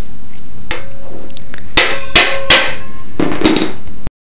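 Hammer striking a hand impact driver set in a screw on a 60cc Suzuki snowmobile engine: about five sharp metal clanks, each ringing briefly, the loudest three close together in the middle. The blows are meant to shock a stuck screw loose. The sound cuts off suddenly near the end.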